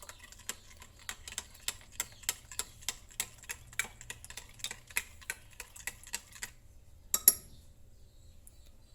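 A spoon stirring powdered milk into hot water, clicking against the side of the container about three times a second. The stirring stops about two-thirds of the way through, followed by a couple of sharper taps.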